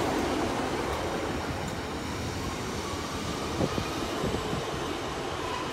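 GWR Class 150 Sprinter diesel multiple unit running slowly into the platform: a steady rumble of its underfloor diesel engines and wheels on the rails that gradually fades, with a few light clicks a little past the middle.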